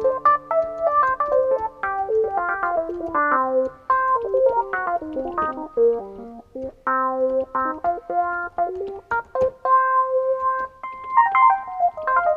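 Yamaha MX49 synthesizer played with an electric piano voice: runs of single notes stepping up and down over held chords, with a held chord near the end.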